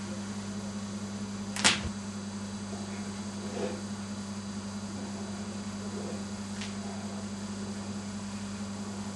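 Steady electrical hum, with one sharp snap about one and a half seconds in and a couple of faint ticks later.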